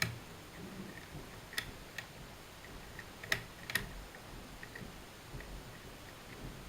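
Small metallic clicks and ticks of a curtain pick working the levers inside an Era Fortress lever deadbolt, with a few sharper clicks scattered through, the loudest a little over three seconds in.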